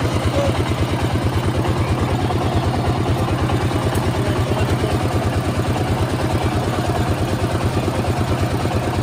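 Engine-driven sugarcane juice crusher running at a steady speed, its engine and belt-turned rollers making an even, rapid low beat.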